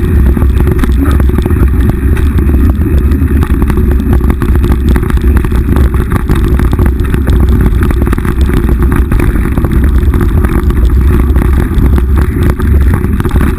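Mountain bike riding fast down a rough dirt single track, heard through a GoPro mounted on the bike: heavy, steady wind rumble on the microphone with constant rattling and clattering from the bike over the bumpy ground.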